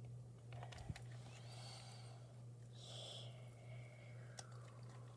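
Melted slime being squished and stretched by hand: faint sticky clicks and soft squelches over a steady low hum.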